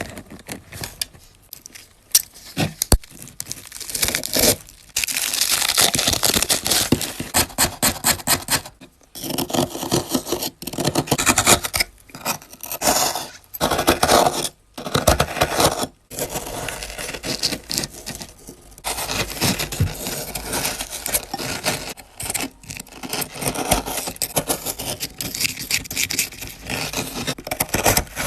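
Close-up crafting sounds from making DIY toys by hand: scraping, tearing and rustling of materials, with many sharp clicks and taps, broken up by abrupt cuts every few seconds.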